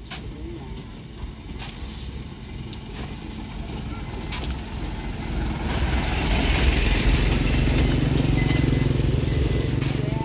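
A truck's diesel engine running close by, its steady hum growing louder from about six seconds in. Over it, the scrape of a long-handled hoe pushed through a pile of granular fertilizer, about once every second and a half.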